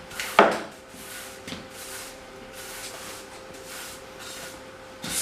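Broom sweeping a floor: soft, repeated brushing strokes, with one sharp knock about half a second in and a faint steady hum beneath.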